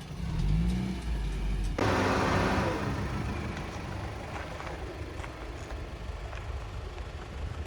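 Car engine revving with a rising pitch for a couple of seconds, then a sudden loud rush of noise that fades away gradually, as of the car pulling away or passing.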